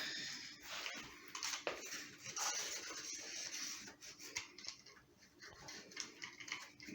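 Solid-wheel screen roller rolling over nylon window screen mesh, pressing it into the frame's groove: a scratchy rubbing with small clicks.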